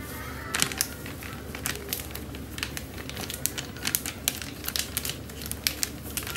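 Crinkling of a crispy-fry batter flour packet, with irregular crackles and clicks as it is tipped and shaken to pour the flour into a plastic tub.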